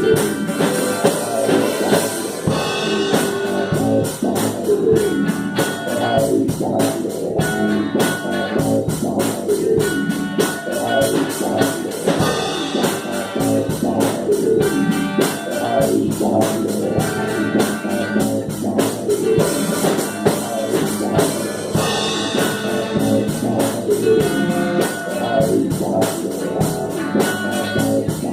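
Instrumental psychedelic rock played by a band: electric guitars over a drum kit keeping a steady beat.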